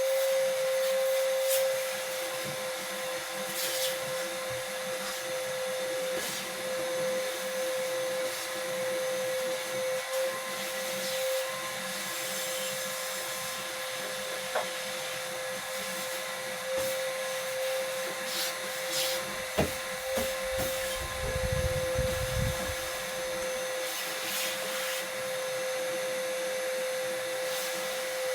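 Electric car polishing machine running at a steady speed, holding one constant whine over a hiss of motor noise, as polish is worked into the paint. A few brief knocks come in along the way.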